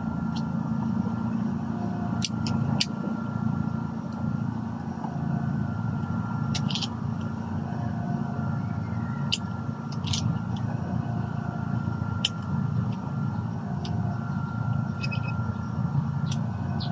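Sharp metallic clicks and clacks from a pump-action shotgun being handled and worked as its shells are unloaded: about a dozen separate clicks, a few clustered about two seconds in, some ringing briefly. A steady low drone runs underneath.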